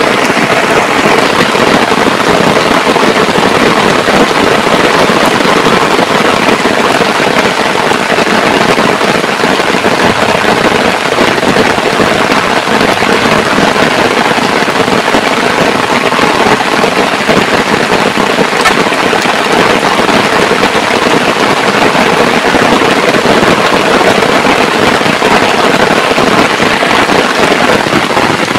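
Heavy rain pouring steadily, a loud, dense hiss of falling drops.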